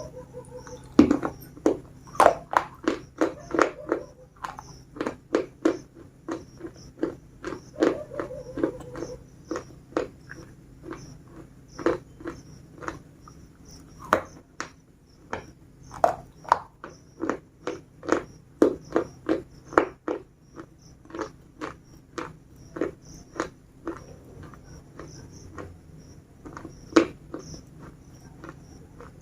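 Biscuits being bitten and chewed close up: a long run of sharp, dry crunches, roughly one to two a second, some much louder than others.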